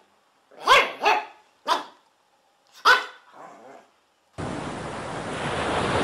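A dog barking: four sharp barks in the first three seconds, then a fainter one. After about four seconds a steady wash of surf sets in.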